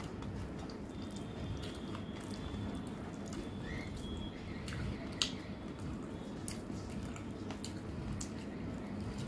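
Close-up eating sounds: a woman chewing rice and chicken curry, with wet squishing as her fingers mix rice into the curry on a steel plate. Scattered small clicks run through it, and one sharper click comes about five seconds in.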